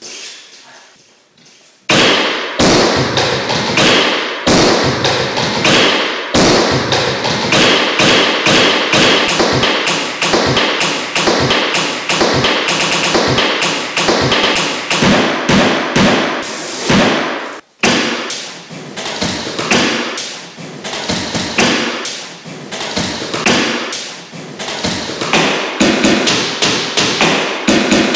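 A looped beat built from demolition sounds: hammer blows and knocks on walls, layered into a fast, dense rhythm of thuds and taps. It starts suddenly about two seconds in, after a faint knock, and breaks off briefly about two-thirds of the way through before picking up again.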